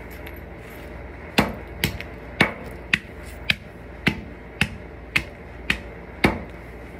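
Hammer striking repeatedly, about ten sharp knocks at roughly two a second, starting about a second and a half in.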